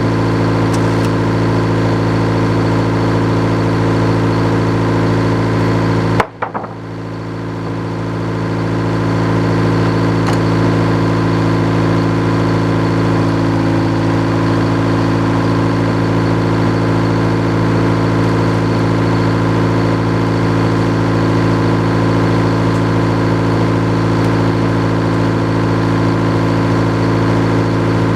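Sawmill engine running at a steady speed. About six seconds in the sound dips suddenly and sharply, then comes back up over the next couple of seconds.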